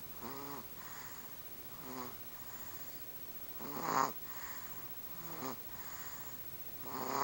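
Hard snoring: about five rasping snores at a slow, even breathing pace, each followed by a softer breath.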